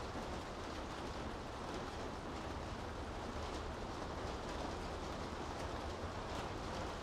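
Steady rain falling on city streets, an even hiss with a low, steady rumble underneath and a few faint ticks of drops.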